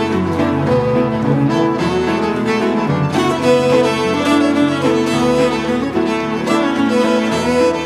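Live instrumental ensemble of fiddle, cello and tenor saxophone playing a tune together, the bowed strings most prominent.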